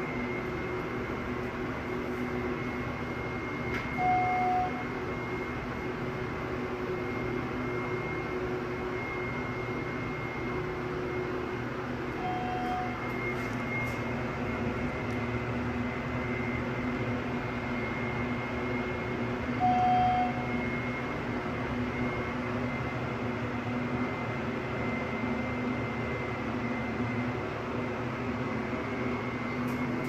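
Elevator car travelling down, with a steady hum and a thin high whine from its drive and ventilation. Three short single-pitch beeps from the cab's chime sound about 4, 12 and 20 seconds in, the middle one fainter.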